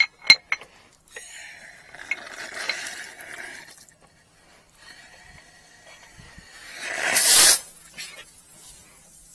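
A few sharp metallic clinks at the start, then hissing as pressurised water escapes from fire-sprinkler piping. The hiss is loudest and brightest about seven seconds in.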